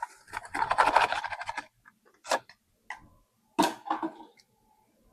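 Handling of an O2 sensor wiring plug and connector under the vehicle: a rattling scrape lasting about a second and a half, then several separate sharp clicks.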